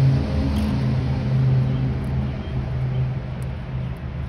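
A low, steady mechanical drone like a running motor or engine, with a hum that holds one pitch and wavers slightly in strength.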